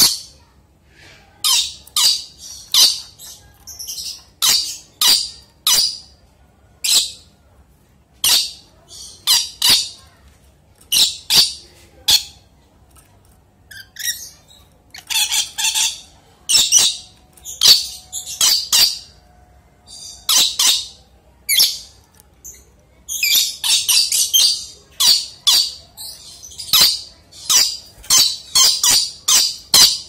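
Red lory (Eos bornea) giving short, harsh screeching calls over and over, about one or two a second with brief pauses, and a quick run of calls about three quarters of the way in.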